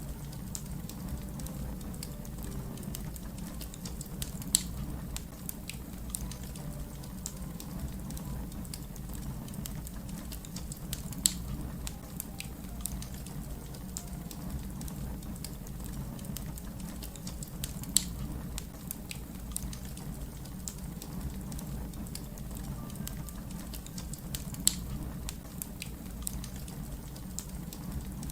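Wood fire crackling, with many small snaps over a low steady rumble and four louder pops spaced about seven seconds apart.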